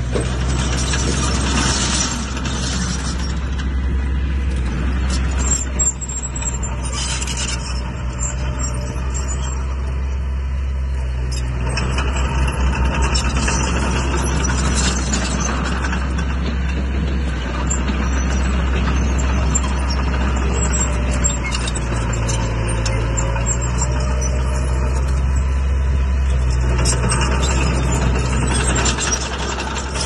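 Heavy earthmoving machine's diesel engine running steadily with a deep drone that rises and falls a little in pitch as it works, with light rattling over it.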